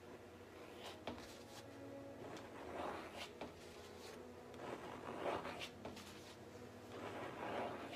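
Paintbrush scrubbing paint onto a canvas: several short, scratchy strokes, over a faint steady hum.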